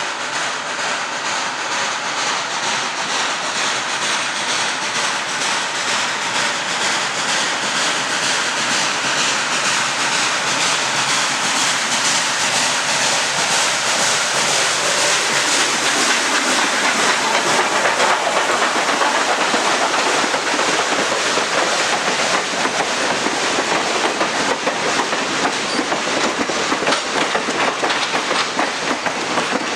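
Train rolling past, its wheels clicking rapidly and steadily over the rail joints. It grows louder toward the middle and then holds steady.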